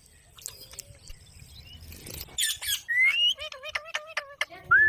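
Pet parrot calling: a harsh squawk about halfway through, then a rising whistle, a quick run of short wavering notes, and a loud whistle beginning right at the end.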